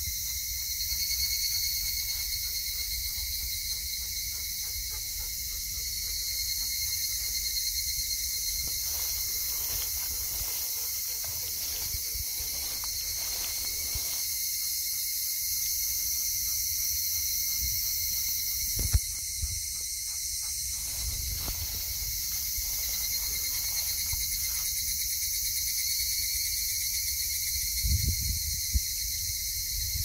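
A steady outdoor chorus of insects trilling, several high continuous tones layered together, over a low rumble. A sharp knock about two-thirds of the way through and a few soft thumps near the end.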